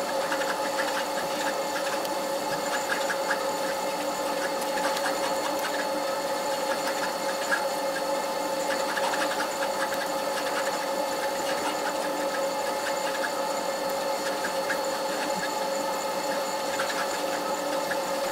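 Steady multi-tone hum of the ferry's machinery, with a dense run of small rattles and creaks from the interior fittings as the ship rolls in a swell.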